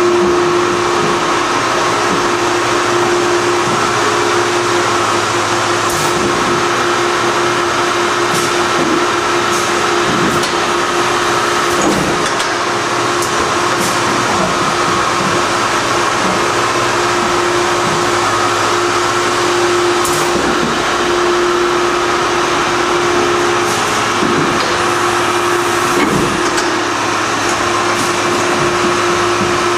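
Gnutti rotary transfer machine running with a steady, loud mechanical hum that holds one constant tone, with a few light clicks and knocks now and then.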